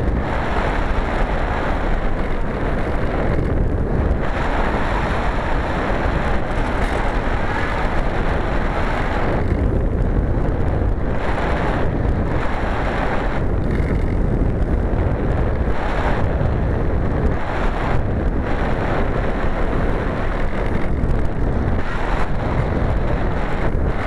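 Wind rushing over the microphone of a #18 keyfob camera riding on a flying Easystar RC plane, mixed with the plane's electric motor and propeller. The noise is steady and heavy in the low end, and a higher hiss drops away briefly several times.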